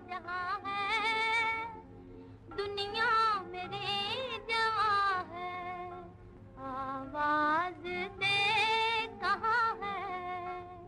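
A woman singing a slow, ornamented melody in long wavering phrases with short breaks between them, over soft instrumental accompaniment: a Hindi film song.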